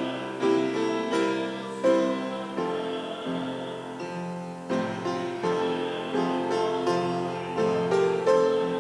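Piano playing a slow hymn in full chords, each chord struck and left to ring before the next.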